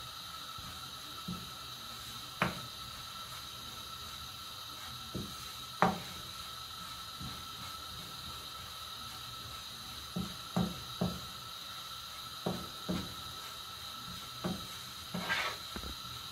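Wooden spatula knocking and scraping against a nonstick frying pan while stirring dry desiccated coconut as it roasts: irregular short clicks and taps, a few at first and more frequent in the second half, over a steady faint hum.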